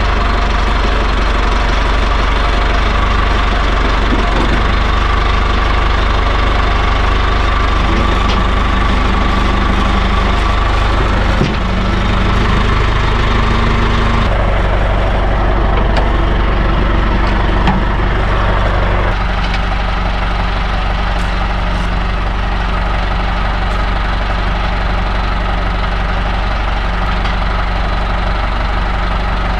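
Farm tractor engine idling steadily, with a few shifts in its tone partway through.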